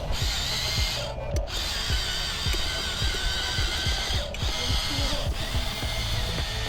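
Electric hydraulic pump of an RC excavator whining, its pitch wavering slightly. It cuts out briefly about a second in and again just past four seconds.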